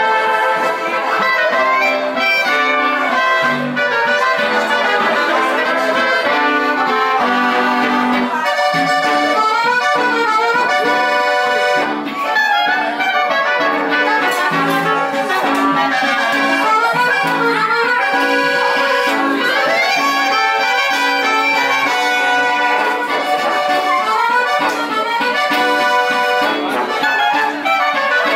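Folk band music: accordion and brass instruments playing a melodic tune over a steady, regular beat.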